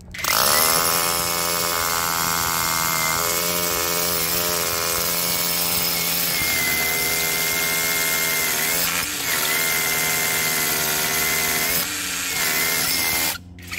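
DCK KRH20V-26 brushless cordless SDS rotary hammer drilling into a stone wall with a half-inch quad-tip bit. It starts at once, runs steadily with a brief dip about nine seconds in, and stops about a second before the end.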